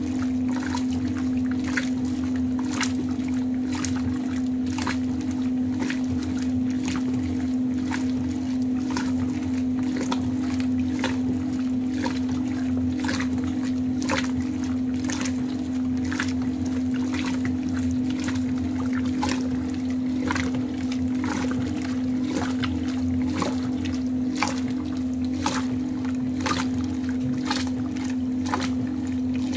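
Maytag top-load washer fitted with an Easy Spiralator agitator, agitating four heavy bath sheets in water at about 62 strokes per minute: the water swishes and splashes about once a second over the washer's steady hum.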